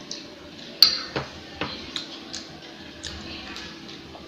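Metal spoon clicking and scraping against a glass plate as rice is scooped up: a run of irregular light clicks, with one sharper clink about a second in.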